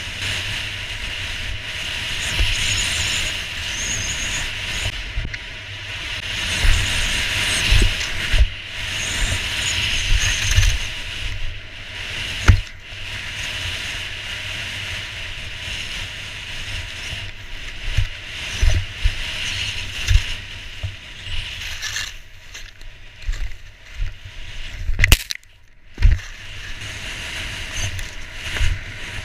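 Skis sliding and scraping over packed snow at speed, with wind buffeting the microphone and irregular low thumps as the skis ride over bumps. The sound cuts out briefly near the end.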